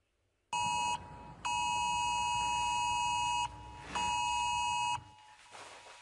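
UK Government Emergency Alert tone from a mobile phone: a loud electronic alarm of two close steady pitches, sounding in three blasts (a short one, a long one of about two seconds, then a medium one), dropping to a faint trailing tone near the end.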